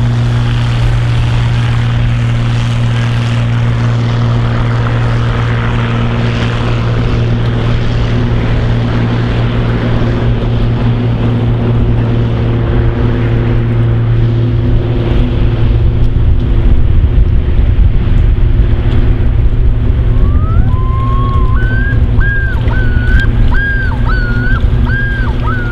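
Light seaplane's propeller engine at full take-off power, a steady drone that grows louder in the second half as the plane lifts off the water and climbs toward the listener. Near the end a high, wavering call of repeated notes sounds over it.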